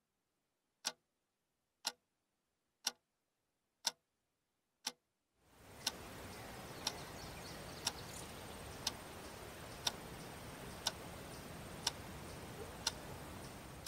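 Clock ticking once a second over silence. About five seconds in, a steady background noise comes in and the ticks carry on under it.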